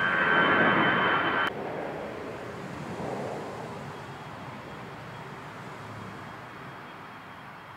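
Twin-engine jet airliner climbing out overhead at takeoff power, its engine noise carrying several steady whining tones, cut off abruptly about a second and a half in. A fainter, steady jet noise from a distant approaching airliner follows and slowly fades.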